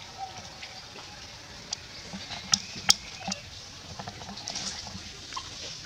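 Outdoor ambience with a steady high hiss, a few sharp clicks near the middle (the two loudest about half a second apart) and faint short chirps.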